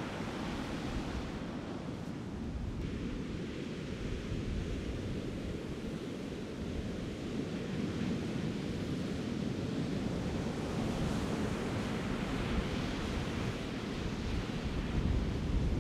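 Ocean surf breaking and washing onto a sandy beach: a steady rushing noise that swells a little near the end.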